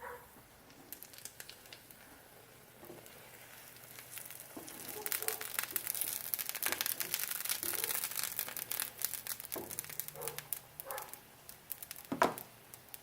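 Cheese-filled arepa sizzling in a dry pan, a dense crackle that swells about four seconds in and fades again, with a sharp knock near the end.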